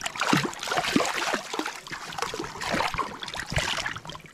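Shallow stream water splashing and sloshing in quick, irregular plops, busiest in the first second and again about three seconds in.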